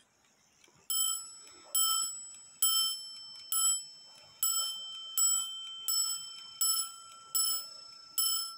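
Dutch Sallander 8-day wall clock movement striking the hour on its brass bell: ten hammer blows a little under a second apart, each ringing and dying away. The strike train has been let off on the hour by the lift lock lever, and it strikes through in a function test of the repaired movement.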